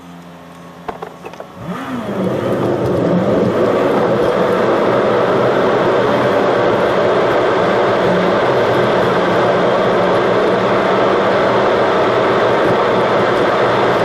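A car pulls away from a stop, heard from inside the cabin: a quiet idle with a few light clicks about a second in, then the engine note rises and gives way to loud, steady engine and road noise as it drives along.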